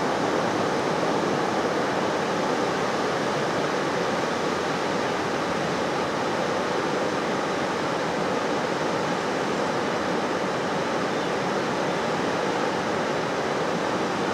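Steady rush of a river flowing over shallows, an even noise with no breaks.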